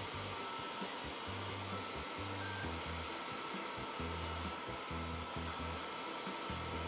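Handheld hair dryer blowing steadily, drying a kitten's damp fur after a shampoo.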